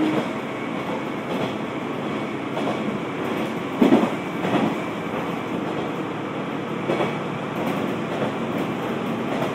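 Kanto Railway KiHa 2200 diesel railcar running, heard from inside the car: a steady rumble of engine and wheels on rail. A few sharp knocks from the wheels over rail joints come through, the loudest about four seconds in.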